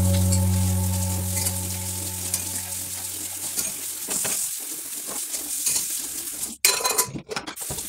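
Water running from a kitchen sink tap as dishes are rinsed, a steady hiss with small clinks of utensils and crockery. A held low note of background music fades out over the first three or four seconds.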